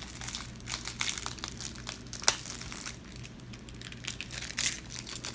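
The foil wrapper of a trading-card booster pack crinkling and tearing as the pack is opened and handled, with a sharp click a little over two seconds in.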